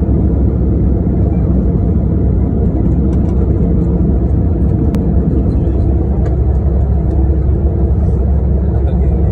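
Steady, loud low rumble of a jet airliner's engines and rushing air, heard from inside the passenger cabin while the plane descends.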